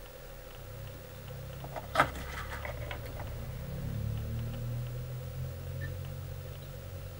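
Handling noise from fly-tying tools at the vise: one sharp click about two seconds in, then a quick run of small clicks, over a low steady hum.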